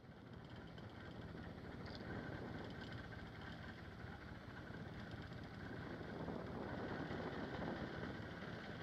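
A boat's engine running steadily under a constant hiss.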